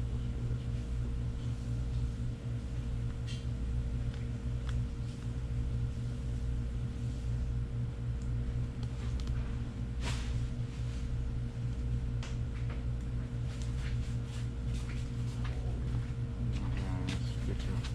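Steady low mechanical hum with a constant pitched tone, with scattered light clicks and taps and a sharper click about ten seconds in.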